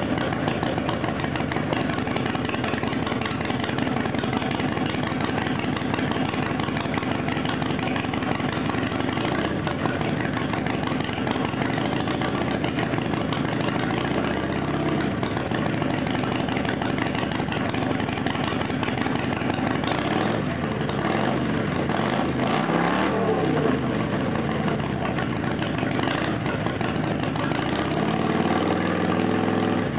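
Harley-Davidson Sportster 883's air-cooled V-twin idling through Martin Bros Trendkills exhaust pipes. In the second half it is blipped a few times, the pitch rising and falling back to idle, with another rise near the end.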